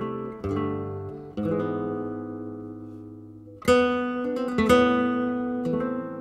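Background music: acoustic guitar playing plucked chords that ring and die away, with a louder strummed chord about three and a half seconds in.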